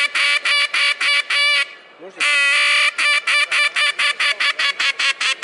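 A reed duck call from Ketner blown by mouth to give a quacking sequence. It runs as two series of rapid, evenly spaced quacks, each opening with a long drawn note, with a short pause about two seconds in. The second series is faster than the first.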